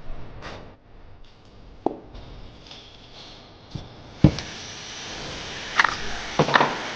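Workshop handling noises of tools and bicycle parts: scattered light knocks and clicks, a sharp knock about four seconds in, then two metallic clanks that ring briefly near the end. A steady hiss starts with the sharp knock and runs on under the clanks.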